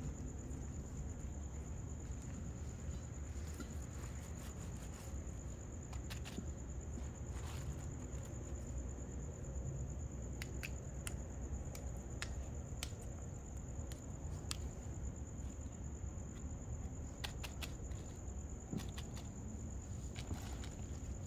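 Crickets trilling steadily in one high-pitched tone, over a low background rumble. Scattered short crinkles and clicks come from the plastic trash bag and the plastic-wrapped tank being handled.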